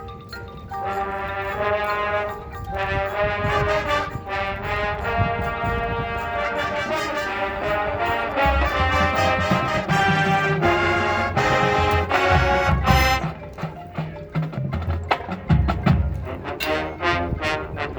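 High school marching band playing: the brass section holds and moves through chords, joined about halfway in by the drumline and heavy low drum hits.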